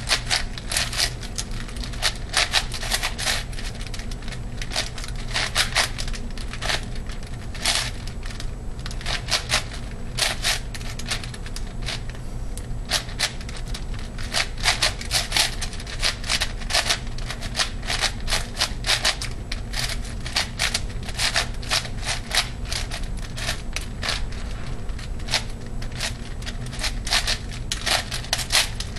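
ShengShou 8x8x8 puzzle cube being turned rapidly by hand in a speedsolve: plastic layers clicking and clacking in quick, irregular runs, with brief pauses between bursts of turns.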